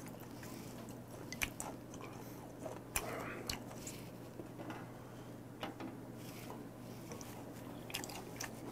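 Close-miked chewing of raw beef: soft, wet mouth clicks and smacks scattered through, with no crunch.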